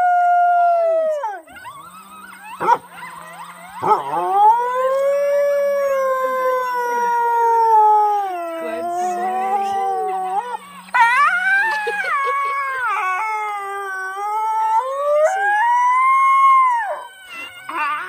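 Coyote howling: a long howl that dies away about a second in, then a long howl that rises about four seconds in and slides slowly down in pitch, and another howl that rises and falls near the end.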